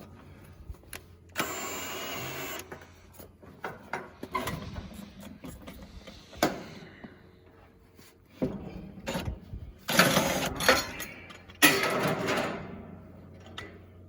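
A cordless drill driving the sawmill's log-turner jack runs steadily for about a second. It is surrounded by scattered knocks and clanks of the log and metal hardware, with louder scraping bursts later on as the log is shifted.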